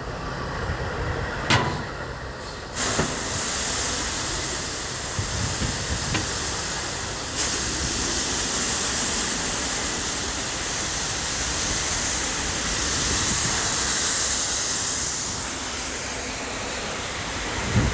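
Wheat pouring from an overhead loadout spout into a truck's grain trailer: after a sharp clack, a steady rushing hiss starts suddenly about three seconds in and keeps going.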